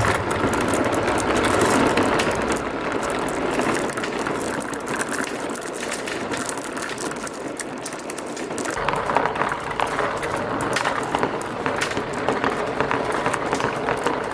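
Marbles rolling and clattering down the plastic slope tracks of a marble run: a steady rolling rumble full of small clicks, which gets busier about nine seconds in.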